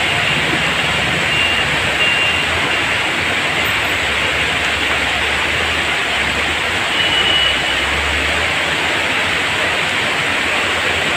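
Floodwater rushing down a stepped channel, a steady loud torrent.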